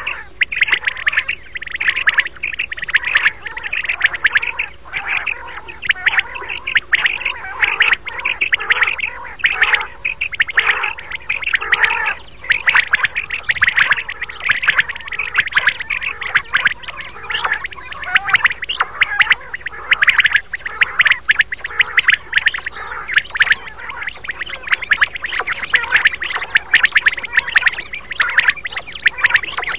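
Common quails calling in a dense, continuous chorus of quick, sharp, repeated high notes: a recorded quail call played as a hunting lure.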